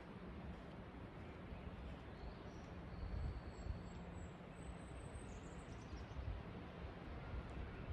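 Ocean surf as a steady wash of noise, with faint, thin, high bird calls between about two and six seconds in.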